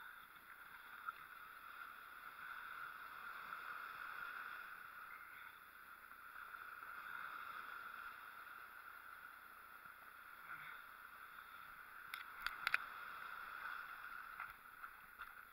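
Faint wash of the sea along the shore, swelling and easing every few seconds, with a short cluster of sharp clicks of handling about twelve seconds in.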